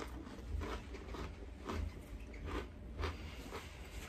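A person chewing a mouthful of crisp wheat cracker with dip, crunching about twice a second.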